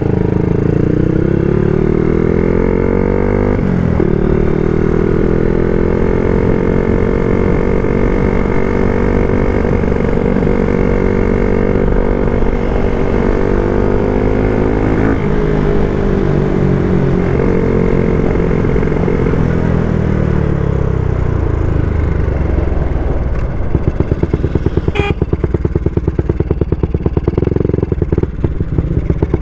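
Yamaha Sniper 135's single-cylinder four-stroke engine heard from the rider's seat at full throttle in a drag race, revving up through the gears with a sharp drop in pitch at each upshift, about four seconds in and again near fifteen seconds. It then falls away as the throttle closes and ends in a low, uneven run at low revs.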